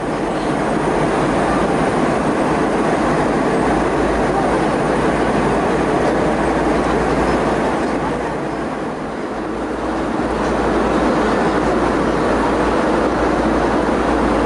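Steady rumble of cabin and engine noise heard from the front row of a Boeing 717, whose rear-mounted Rolls-Royce BR715 engines are far behind, as the airliner taxis after landing. The noise eases briefly about two-thirds of the way through, then comes back up.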